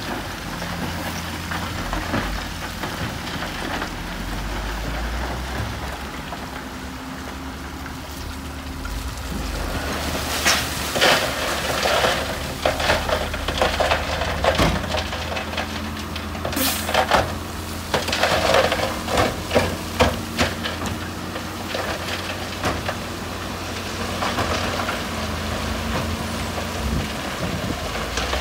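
Heavy earthmoving machine's engine running steadily under load, with stretches of crunching and crackling from rocks and gravel being pushed, thickest from about a third of the way in to about three quarters.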